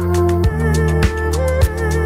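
Background instrumental music with sustained melody notes over a bass line and a steady beat, a little under two beats a second.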